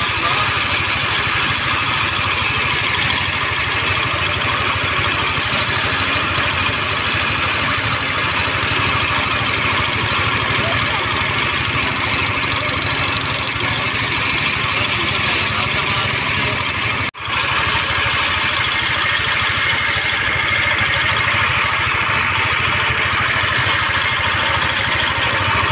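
Passenger boat's motor running steadily, with a brief break about seventeen seconds in.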